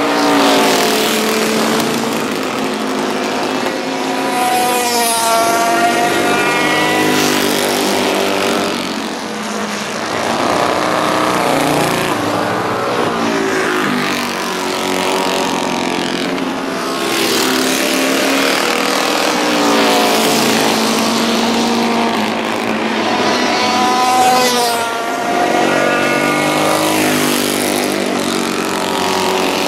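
Vintage racing motorcycle engines running hard around a banked track, the engine note rising and falling as bikes accelerate and pass.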